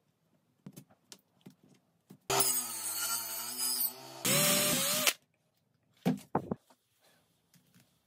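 Small electric power tool runs for about three seconds with a steady motor hum. Near the end it switches to a higher pitch, then stops abruptly. Light clicks and knocks of handling come before and after.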